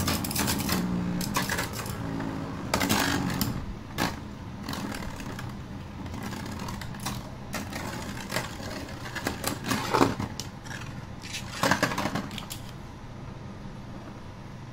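Two Beyblade spinning tops, a custom 3D-printed Aero Knight MS with a plastic ring and a second Beyblade, whirring in a clear plastic stadium. They clash and scrape against each other and the stadium in repeated sharp clacks, with the hardest hits near the start, around three to four seconds in, and again at about ten and twelve seconds. After that the clashing dies down.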